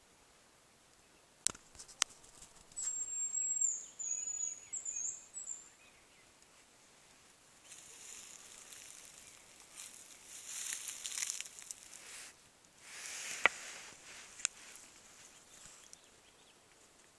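Hazel grouse whistling: a very high, thin whistle about three seconds in that runs on into a wavering trill for about three seconds. Later come a few sharp clicks and stretches of rustling.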